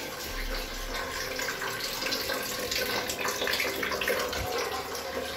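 Water running steadily from a bathroom tap, splashing as it pours.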